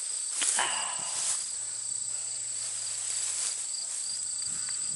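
Field insects such as crickets chirring steadily: one continuous high trill and a second, pulsing trill just below it. A few brief rustles and knocks come in the first second or so.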